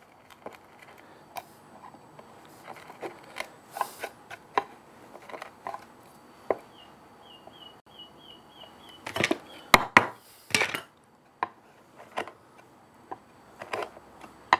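Wood chisel paring a hinge mortice in the edge of a wooden box by hand: irregular small cuts and scrapes of steel on wood, with a cluster of sharper, louder cuts a little past the middle.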